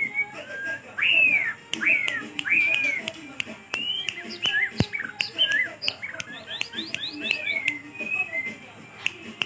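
Caged male white-rumped shama singing in an aggressive display: a run of loud, arching whistled phrases, with sharp clicks scattered between them.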